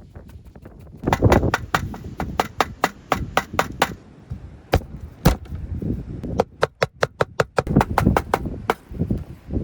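A quick run of sharp chopping knocks, about four a second, then single knocks and another short run near the end.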